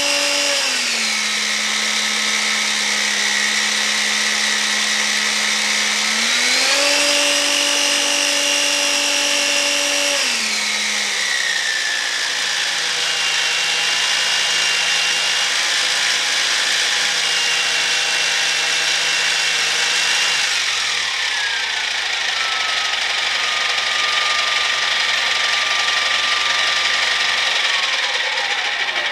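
3D-printed centrifugal turboshaft spinning its propeller, a high whine over rushing air. The pitch steps down about a second in, back up after about six seconds, down again after about ten, lower still after about twenty, and falls away near the end as the speed changes.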